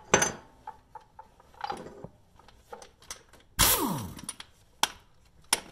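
Metal clicks and knocks of a long socket and extension being worked onto a hub mounting bolt, with a louder grating burst about three and a half seconds in.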